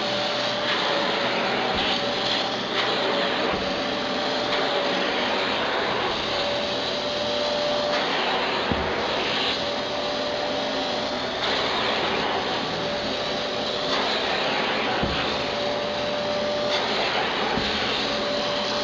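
Electrolux Ergolite vacuum cleaner running continuously, plausibly working over upholstery. A steady mid-pitched tone drops in and out, and the rush of air shifts every second or two as the nozzle is moved about.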